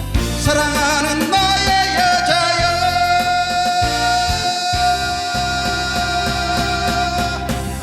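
The closing bars of a Korean ballad: a single long held note, wavering at first and then steady, over guitar and backing accompaniment.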